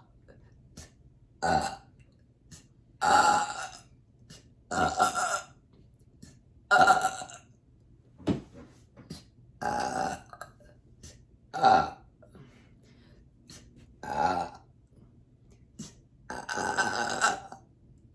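A woman burping over and over: a string of about eight separate loud burps, a second or two apart, some short and some drawn out for about a second, with small clicks in between.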